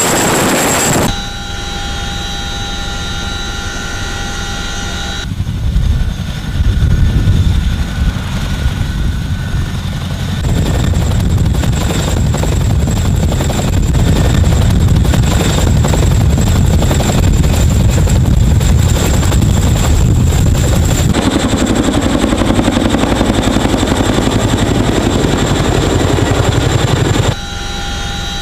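CH-47 Chinook twin-rotor helicopter running: a steady high turbine whine over the rapid beat of its tandem rotors. The sound changes abruptly several times, as if shots have been cut together.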